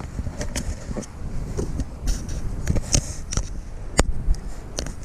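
Rustling and handling noise from a GoPro being strapped onto the wearer's head, with scattered clicks and taps and one sharp click about four seconds in.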